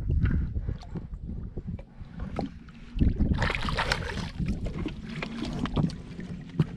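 Water sloshing around a muskie held beside the boat's hull, then a burst of splashing about three seconds in as the released fish kicks free and swims off.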